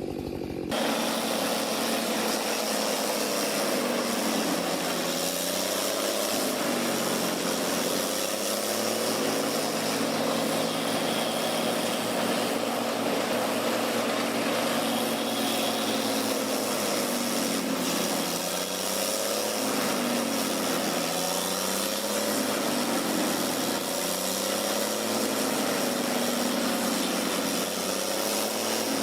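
An engine running steadily at a roughly constant speed, its pitch wavering slowly up and down, after an abrupt cut under a second in.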